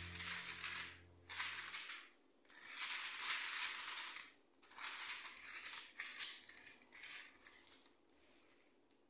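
Baking paper rustling and crinkling as it is handled and laid on a metal baking tray, in a string of bursts with short pauses between them.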